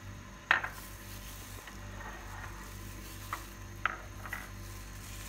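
A few short clinks and knocks of glass bowls being handled on a stone countertop, the sharpest about half a second in, over a steady low hum.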